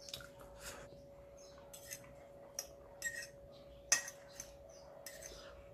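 Eating noodles: a utensil clicking and clinking against a plate or bowl, with short mouth noises of chewing, a handful of brief sounds with the sharpest click about four seconds in. A faint steady hum sits underneath.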